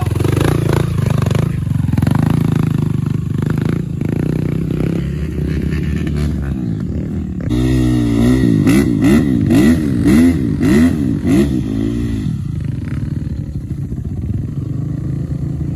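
Dirt bike engines running, with the revs swinging up and down about twice a second for some five seconds from about halfway in as bikes are worked up a muddy trail slope.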